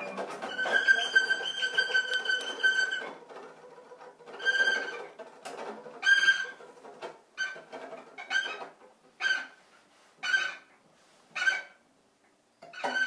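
Cello bowed in free improvisation: one high note held for about three seconds, then short high bowed strokes that settle into about one a second, with a brief pause near the end.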